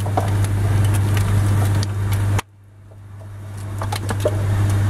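A steady low hum with a few light clicks and rustles from the wiring loom being handled. The sound cuts out suddenly about halfway through, then fades back in over the next couple of seconds.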